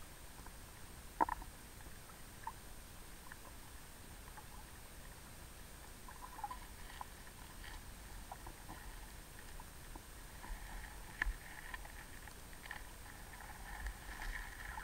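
Creek water heard underwater through a submerged camera: a faint steady wash with scattered clicks and ticks, the sharpest about a second in, growing busier near the end.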